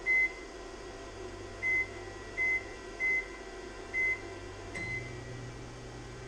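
Microwave oven keypad beeping six times as its buttons are pressed, each a short high beep. The last beep comes with a click, and the oven starts up with a low steady hum as it begins heating.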